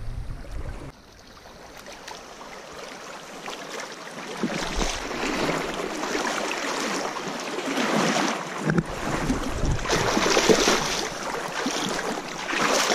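Shallow creek water rushing and splashing close by, growing louder from about a second in, with irregular splashes as a hooked brown trout thrashes in the shallows.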